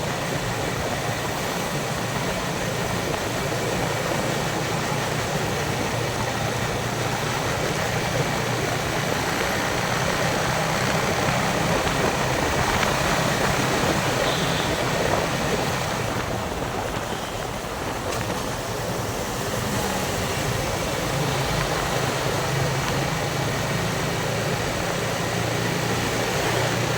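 Yamaha Vixion single-cylinder four-stroke motorcycle engine running steadily while riding, mixed with wind noise on the microphone. The sound thins out briefly a little past halfway.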